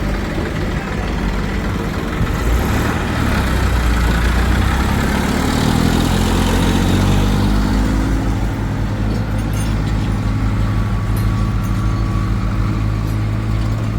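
Heavy diesel engine running, revving up a few seconds in and then holding steady at the higher speed.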